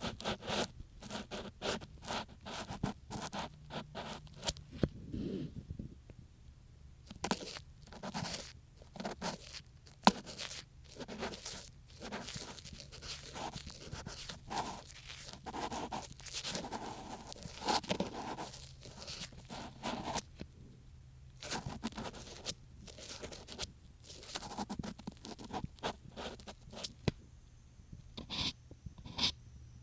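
An ear pick scraping and scratching inside a binaural microphone's artificial ear, in quick, irregular strokes of several a second, with a couple of brief pauses.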